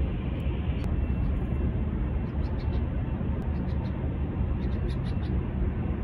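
Steady low outdoor rumble, with faint quick runs of high bird chirps from about two seconds in.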